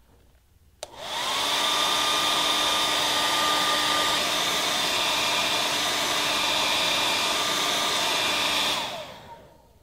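Handheld hair dryer switched on with a click about a second in, its motor whine rising as it comes up to speed, then blowing steadily before it is switched off near the end and winds down with a falling whine.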